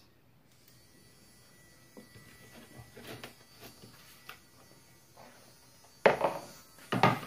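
Small pen-style electric mini drill running with a faint steady whine, then two loud short bursts near the end as its wood bit bores into MDF board.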